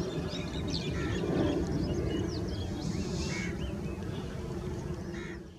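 Distant low rumble of a Boeing 777's jet engines as it climbs away after takeoff, with birds chirping over it. The sound fades out near the end.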